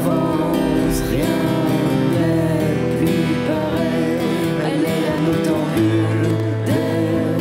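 Soundtrack song: strummed acoustic guitar under a singing voice, playing steadily.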